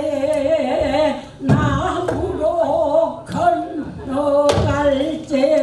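Woman singing pansori: long held notes with a heavy, wavering vibrato, broken by short breaths about a second and a half in and again past four seconds. A few low thumps land at those breaks, typical of the accompanying drum.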